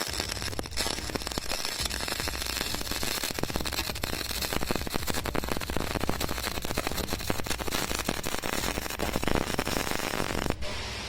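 CO2 gas-shielded wire-feed (MIG/MAG) welding arc crackling and spitting steadily, a dense run of rapid snaps over a low hum, which stops suddenly near the end as the arc is broken.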